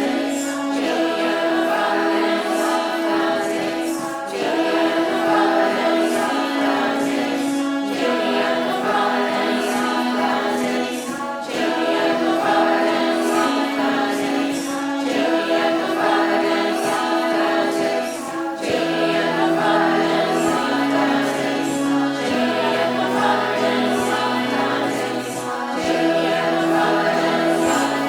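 Music: a choir singing slow held chords that change every couple of seconds.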